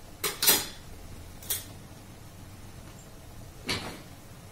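Kitchen utensils being handled around a stone mortar: four short knocks and clatters, two close together about a quarter and half a second in (the second the loudest), another a second later, and a last one near the end.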